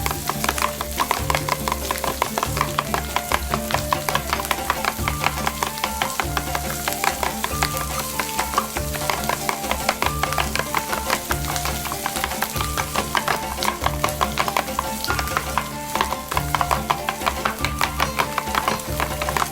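Background music: a melody over a repeating bass line, with a steady beat.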